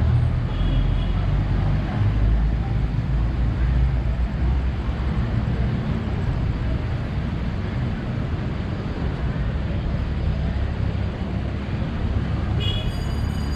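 Steady low rumble of city traffic. A few brief high-pitched tones come in near the end.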